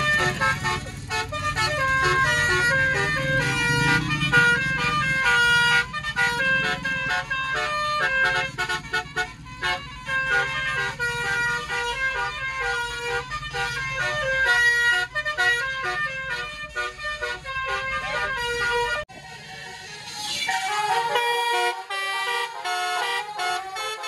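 Multi-tone musical air horn playing a fast melody of short notes, over a vehicle engine's low rumble. About three-quarters through, the engine rumble cuts out abruptly while the horn tune carries on.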